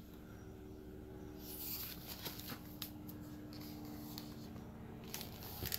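Quiet room tone with faint paper rustling and a few light clicks from handling a picture book.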